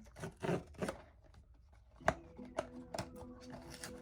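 Blind-box packaging being torn open and crinkled by hand: a run of irregular rustles and crackles. About halfway through, a faint steady background hum of a few low tones comes in under them.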